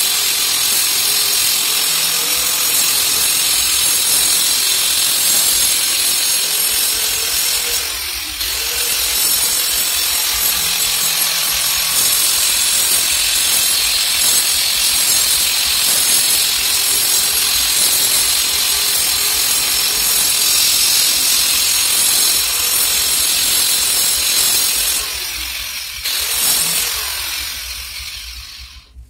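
Angle grinder with a cutting disc slicing a channel into a brick-and-mortar wall, running steadily with a brief dip about 8 seconds in. Near the end it is switched off and winds down.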